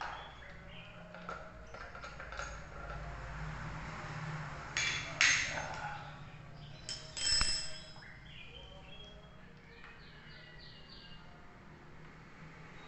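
Metal tools and parts clinking and clanking during the unbolting of an electric water heater with a 10 mm wrench: two louder clanks with a brief ring about five and seven seconds in, then a quick run of light taps.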